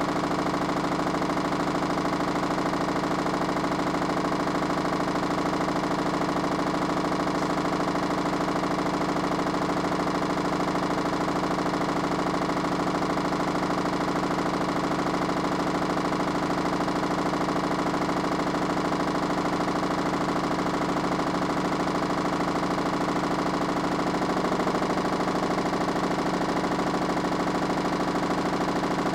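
Minicolo mini washing machine running with a steady motor hum.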